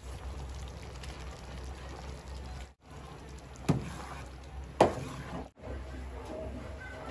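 Metal ladle stirring thick rice porridge (lugaw) in a pot, with two sharp knocks of the ladle against the pot about a second apart.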